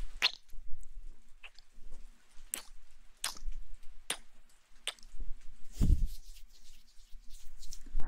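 Close-miked wet mouth sounds: sharp lip and tongue clicks, roughly one a second, with a soft breathy puff a little before the end.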